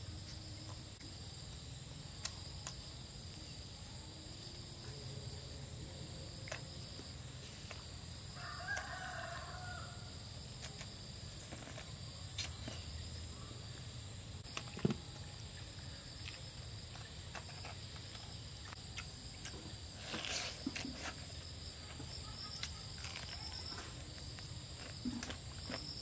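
Steady chirring of crickets, with a chicken calling once for about a second about nine seconds in, and scattered light clicks and knocks.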